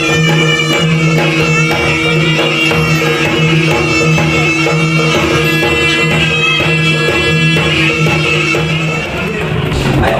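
Traditional Javanese jaranan music: a wind instrument plays a wavering melody over a steady low drone and percussion. About nine seconds in the drone drops out and the music changes.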